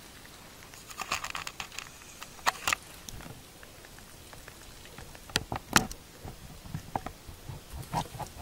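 Scattered crackles and sharp snaps of twigs and dry forest litter as a black bear moves through the brush. There is a cluster about a second in, two loud snaps a little later, and more irregular snaps in the second half.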